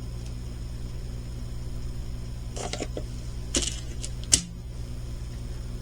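Small plastic bags of diamond-painting pearl drills being handled: a few short crinkles and clicks about two and a half to four and a half seconds in, over a steady low hum.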